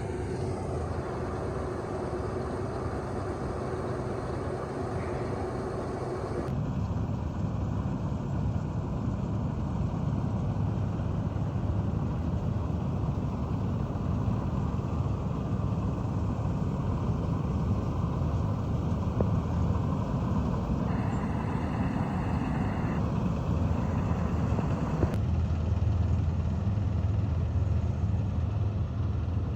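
Combine harvester running steadily, a low engine and machinery drone. It changes abruptly a few times where the recording cuts between clips.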